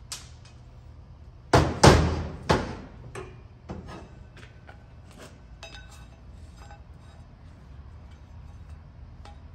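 Three loud metal clanks in quick succession, each ringing briefly, as suspension strut parts knock against each other and the workbench while being handled. A few lighter metallic clinks and rattles follow.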